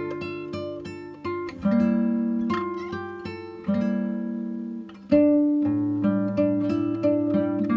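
Background music: an acoustic guitar playing plucked chords, each ringing out and fading before the next.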